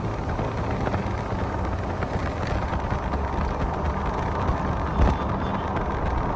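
A motor vehicle on the move: steady engine and road noise with a low hum, and one knock about five seconds in.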